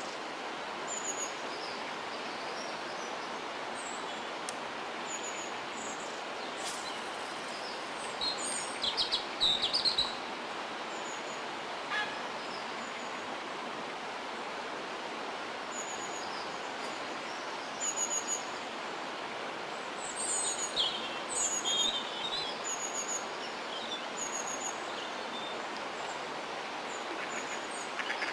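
Small birds chirping and calling in short, scattered bursts, busiest about a third of the way in and again about three quarters of the way through. Under them runs a steady, even background hiss.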